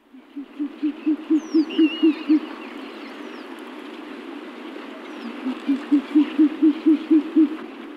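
Owl giving two rapid series of short, low hoots, about five a second, one at the start and one about five seconds in. Faint high bird chirps and a steady hiss of outdoor ambience are in the background.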